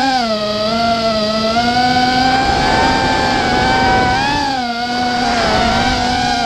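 A racing quadcopter's four EMAX RS2205 2300 kV brushless motors and Gemfan 5040 three-blade props whining as it flies, the pitch rising and falling with throttle and dipping briefly about four and a half seconds in, heard from the camera mounted on the frame.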